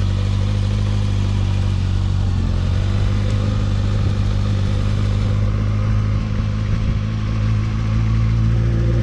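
Motorcycle engine running at low, steady revs as the bike pulls away in first gear, the clutch let out slowly.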